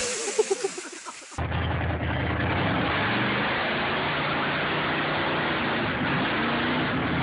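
Lifted pickup mud truck's engine running steadily and loud as it drives up onto another vehicle in a mud pit. It begins abruptly about a second and a half in, after a few short voices.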